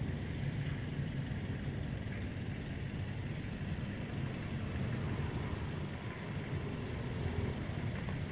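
Steady low engine hum, like an engine idling, with no change in level.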